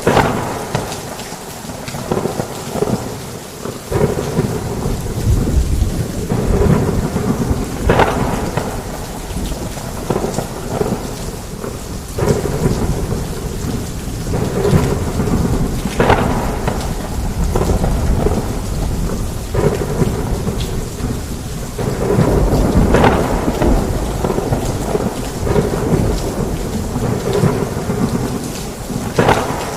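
Heavy rain pouring steadily, with thunder rumbling low and several sharp cracks of thunder through it.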